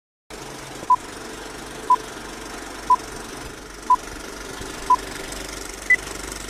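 Old-film countdown leader sound effect: the steady hiss and rattle of a running film projector, with a short beep once a second, five at one pitch and a sixth, higher beep near the end.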